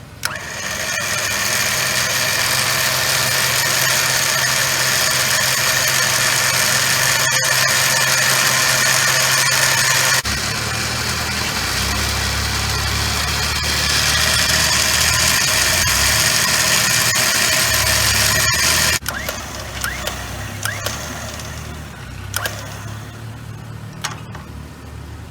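Harbor Freight Badland electric winch motor running steadily as it spools its line back in. The motor's hum shifts lower about ten seconds in and cuts off at about nineteen seconds, leaving a quieter hum and a few clicks.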